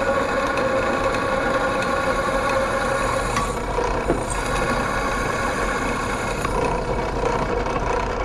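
Benchtop drill press motor running steadily with a hum while a dull twist drill bit bores into a steel box tube.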